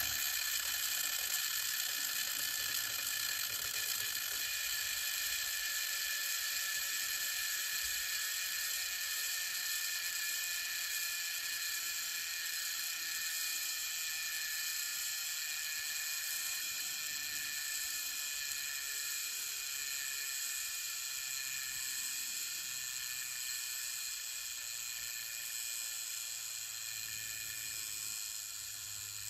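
Revox B710 cassette deck fast-rewinding a cassette: a steady, high whir of the transport and the spinning tape reels.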